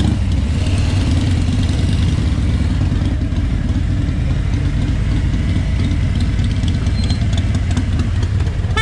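Harley-Davidson Road King's Milwaukee-Eight 107 V-twin engine running steadily at low revs as the bike rolls slowly at walking pace.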